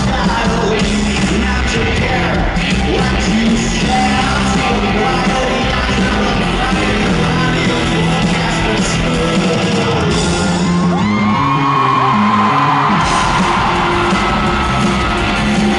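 Rock band playing live in an arena, heard from the audience: electric guitars, bass and drums with singing and yells. About ten seconds in the bass and drums drop out for a couple of seconds under a held, bending note, then the full band comes back in.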